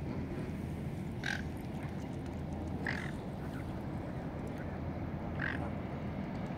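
Three short quack-like waterfowl calls spread over a few seconds, above a steady low background rumble.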